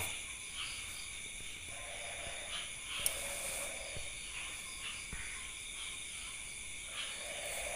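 Steady, high-pitched drone of night insects, several pitches held at once, with faint low voices briefly about two seconds in and again near the end.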